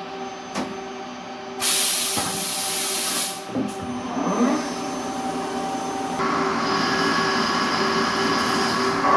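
Machine tool running with a steady whine during machining. A loud hiss cuts in about a second and a half in and lasts about two seconds. From about six seconds in the running grows louder, with higher tones added.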